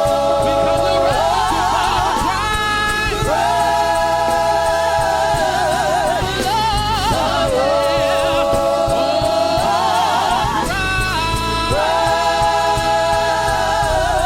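Gospel choir singing long held chords with vibrato, moving to a new chord every second or two, over a steady instrumental backing.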